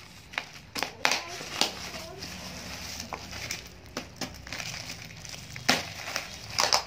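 Black plastic bag wrapping crinkling and ripping as it is pierced and torn open around a cardboard box with a pointed hand tool: a string of sharp rustles and rips about a second apart, the loudest near the end.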